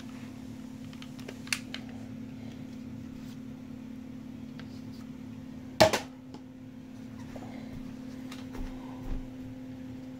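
Nerf Mega Big Shot blaster dry-fired with no dart loaded, one sharp loud pop about six seconds in, after a light click a few seconds earlier. A steady low hum runs underneath.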